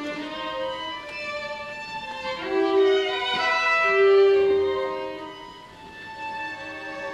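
Symphony orchestra playing, with violins and bowed strings to the fore in long held notes. The sound swells about three seconds in and dies down again near six seconds.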